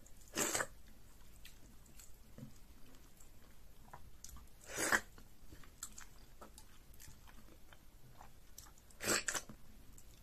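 Close-miked mouth sounds of someone eating fufu with banga soup by hand: three short, loud wet mouth sounds about four seconds apart, with faint clicks of chewing between.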